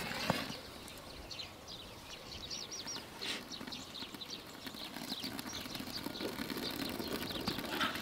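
Faint outdoor background with small birds chirping in short high calls, a quick run of them about two and a half seconds in, and a few light knocks.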